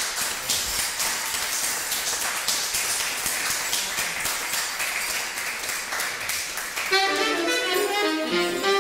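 Live jazz: a busy wash of rapid taps and hiss, then about seven seconds in a saxophone comes in with a quick run of notes.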